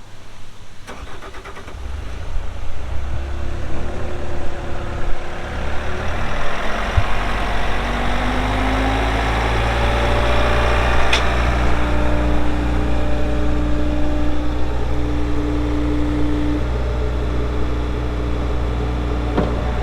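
Bobcat S66 skid steer's diesel engine starting about two seconds in, then settling into a steady idle.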